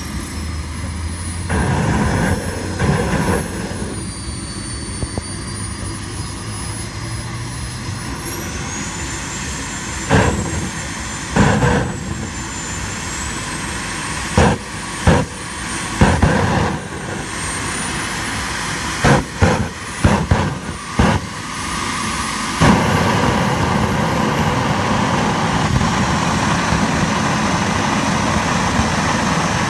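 Small model jet turbine of an RC dragster running on a stand, a steady roar with a high whine that sinks in pitch over the first few seconds, then climbs and holds. Through the middle it gives a series of short, loud blasts, and near the end it runs louder.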